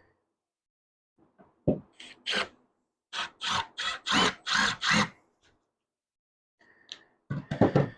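Wood being worked by hand: a thump, then six even scraping strokes at about three a second, and a cluster of knocks near the end.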